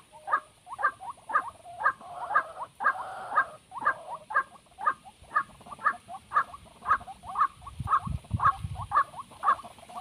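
White-breasted waterhen (ruak-ruak) calling, a steady series of short repeated notes about two a second. A low rumble comes in around eight seconds in.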